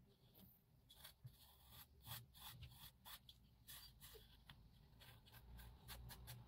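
Gloved fingertips smoothing Polyfilla filler along the edges of a card model: a run of faint, short rubbing and scraping strokes, coming faster near the end.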